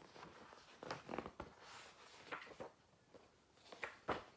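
Faint rustling with a few soft clicks and taps, the handling of a book and its pages.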